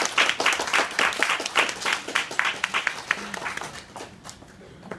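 Small audience applauding, dense clapping that thins out and dies away about three to four seconds in.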